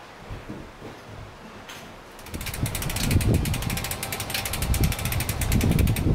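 Rapid, even ticking of a bicycle's freewheel ratchet as the bike coasts, starting about two seconds in and stopping right at the end, over a low rumble of wind on the microphone.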